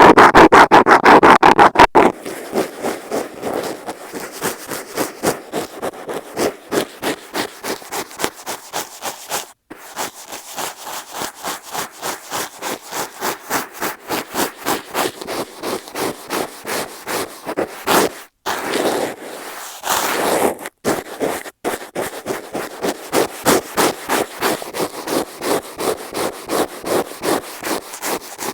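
A metal dental scaler scratching loudly and fast on an earphone microphone, ending about two seconds in. Then a makeup brush sweeps back and forth over the microphone in quick, regular strokes, a few a second, with a few short breaks.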